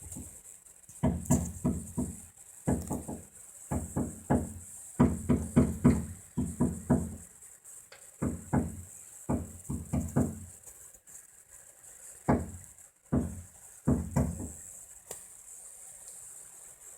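Woodpecker pecking at wood, hunting into bee holes: bursts of several quick, sharp knocks separated by short pauses, the bursts thinning out toward the end.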